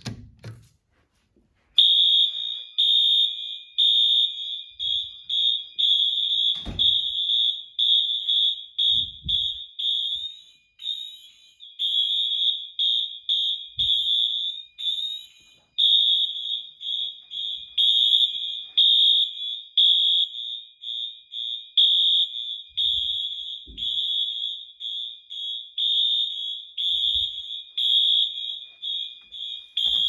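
Honeywell (rebranded Wheelock MT) multi-tone fire alarm horns start sounding about two seconds in. They give a loud, high-pitched pulsing tone, one circuit in code 3 (temporal) and the other in march time, so the beeps overlap in an uneven rhythm.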